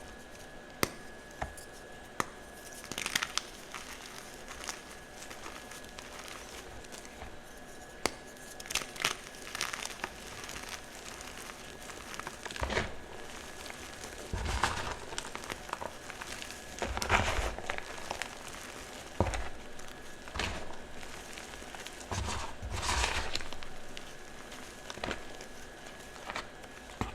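Soft chalk blocks crunching and crumbling in irregular bursts, with occasional sharp clicks between them.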